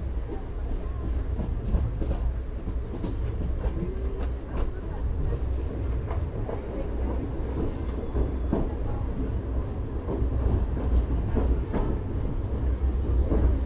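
A moving passenger train, the Alipurduar–Mariani Intercity Express, running with a steady low rumble. Short rattles and wheel clicks come through it, and faint high squeals sound now and then.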